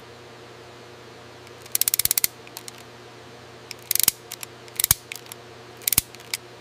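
Hand crimping tool clicking as it closes on a cable connector: a fast run of clicks about two seconds in, then short clusters of clicks near four, five and six seconds, over a steady low hum.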